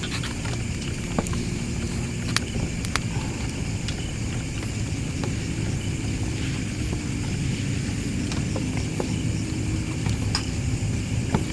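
Portable gas stove burning steadily under an aluminium pot while a frothy liquid is stirred with a wooden spatula. The spatula knocks lightly against the pot a few times, as sharp ticks.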